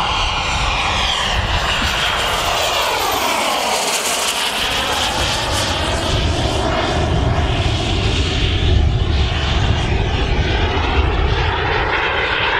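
Aero L-39 Albatros jet trainer's single AI-25TL turbofan running loud as the jet passes overhead, a steady roaring hiss with a whine that sweeps down in pitch about three to four seconds in and then climbs back up.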